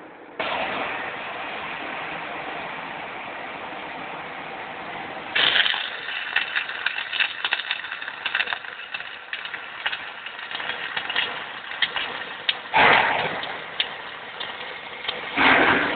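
Flux-cored wire welding arc struck about half a second in. It starts as a steady hiss, then from about five seconds on becomes a busy crackle with sharp spatter pops, surging louder twice near the end. The bead is laid over an earlier weld pass.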